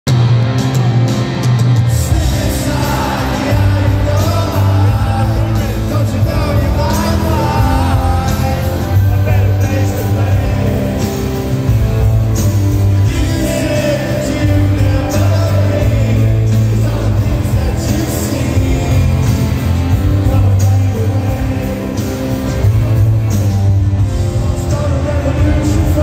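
Rock band playing live in an arena: electric guitars, bass and drums with singing, which starts about two seconds in.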